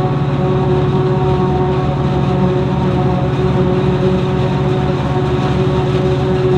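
Heavy farm machinery running steadily at harvest: a Claas Jaguar 695 forage harvester chopping maize, with a constant engine drone and a steady whine over it.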